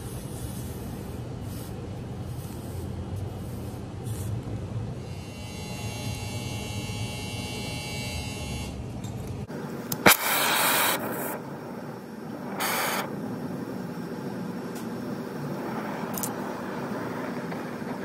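Brazing torch flame hissing steadily while it heats copper refrigerant tubing at a compressor's lines. About halfway through there is a sharp click, then a second of loud hiss, and a shorter burst of hiss a couple of seconds later.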